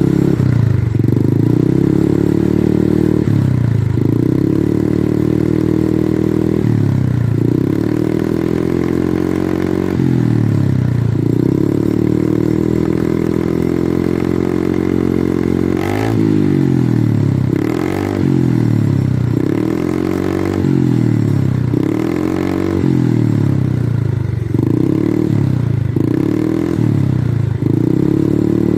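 Yamaha Fino carburettor scooter's single-cylinder four-stroke engine, its muffler opened up with the baffle removed, revved again and again. The pitch climbs and drops back roughly a dozen times, with quicker blips in the second half.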